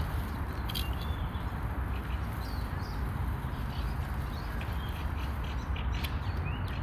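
Songbirds chirping in short calls over a steady low rumble, with a few sharp clicks and knocks as wood and metal are handled at a smoker's steel firebox. About six seconds in, the firebox door shuts with a knock.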